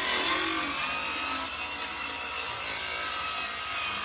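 Handheld jigsaw running steadily as its blade saws a long cut through a thin wood veneer sheet.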